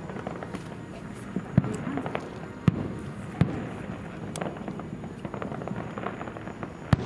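Fireworks shells bursting: four loud, sharp bangs at uneven intervals, with smaller cracks and crackling between them.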